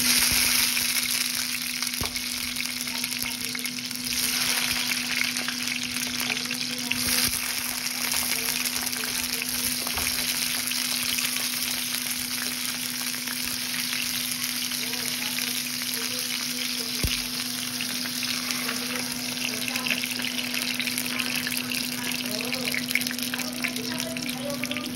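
Tomato wedges frying in hot oil in a pan: a steady sizzle and crackle that flares up at the start as they go in, over a steady hum.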